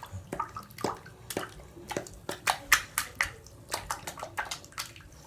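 Bath water splashing and dripping in a tub: a series of short, irregular small splashes, a few a second, as hands move in the water.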